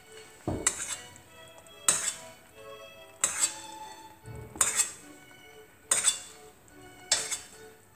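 Metal tongs and a teaspoon clinking against a stainless steel pot of fig syrup (cotto di fichi) while fried cartellate are pressed down and basted, about six sharp clinks spaced roughly a second and a half apart. Faint background music plays underneath.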